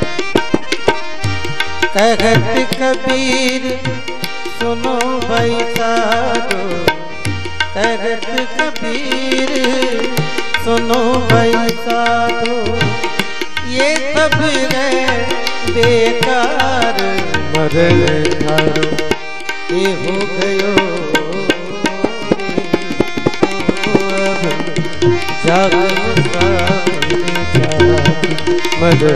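Instrumental interlude of a devotional bhajan: a melody instrument playing over a steady hand-drum rhythm.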